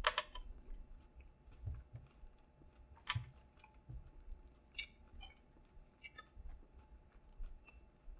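A person chewing a mouthful of spicy fried chicken sandwich with the mouth closed: quiet, scattered wet mouth clicks and smacks, a sharper smack right at the start.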